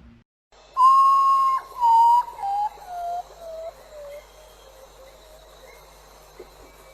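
A whistle-like tone held for about a second, then falling in a string of short stepped notes that fade away, like a cartoon falling-whistle sound effect.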